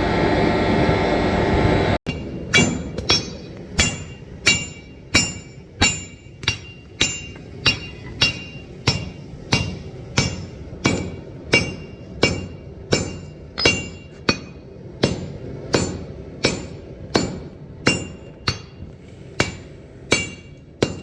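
Blacksmith's hand hammer striking hot steel on an anvil in a steady rhythm, about one and a half blows a second, each blow ringing. It starts after a dense continuous noise cuts off abruptly about two seconds in.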